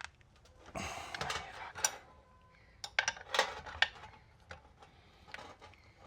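Metal spanners clinking and scraping as the water pump impeller nut is worked loose. There is a scraping rattle about a second in, then a string of sharp metal clicks.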